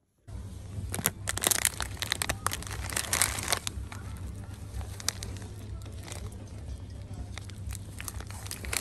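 A plastic bag of dried spaghetti crinkling and crackling as it is handled, over a steady low hum. The sound cuts in abruptly just after the start.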